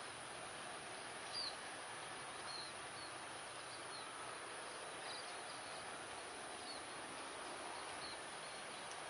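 Steady outdoor background hiss with short high-pitched chirps repeating about once a second, the loudest about a second and a half in.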